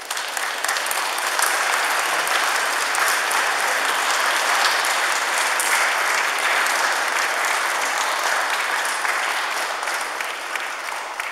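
A congregation applauding: dense clapping that starts abruptly and dies away near the end.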